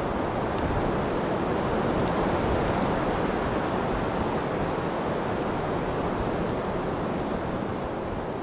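Steady wash of surf and wind, an even rushing noise with no distinct events, beginning to fade out near the end.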